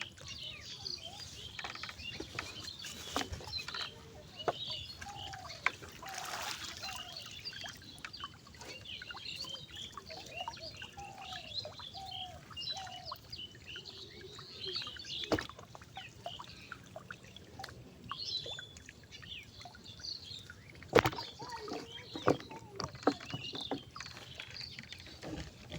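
Many small birds chirping and calling without a break, with a few sharp knocks along the way, the loudest about three-quarters of the way through.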